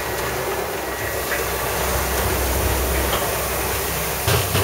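Steady hum and hiss of a semiconductor wet-bench cleaning machine running, with a brief thump near the end.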